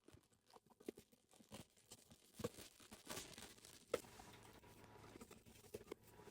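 Perfume box packaging handled and opened by hand: faint crinkling and tearing with scattered small clicks, two sharper clicks about two and a half and four seconds in.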